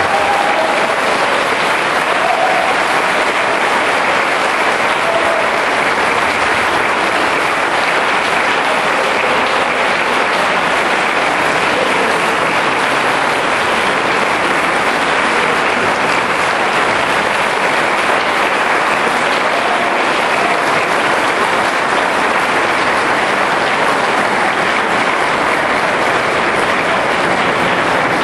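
Audience applauding steadily at the close of a concert.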